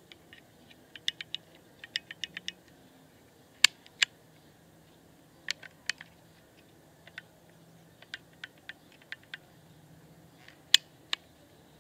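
Metal clicks from the hammer and action of a Mendoza Western munisalva pellet pistol as it is handled. A run of small clicks comes first, then three pairs of sharper clicks, each pair about half a second apart.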